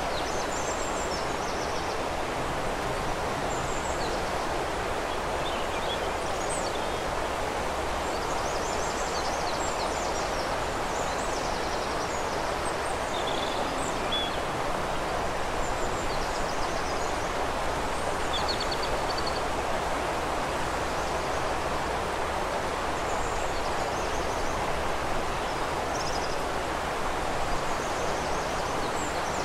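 Steady rush of flowing river water, with small birds chirping and trilling on and off over it.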